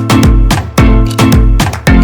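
Background music with a steady, rhythmic beat and heavy bass notes.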